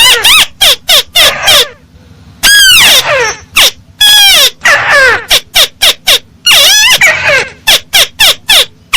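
Crake (burung tikusan sawah) calling loudly: runs of quick, harsh notes that sweep down in pitch, broken by a short pause about two seconds in, then several longer falling calls before the quick notes resume.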